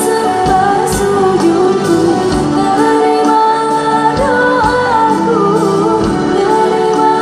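A live band playing a sholawat (Islamic devotional song) with female vocals. The singing is held over a steady drum beat, with bass guitar and keyboard.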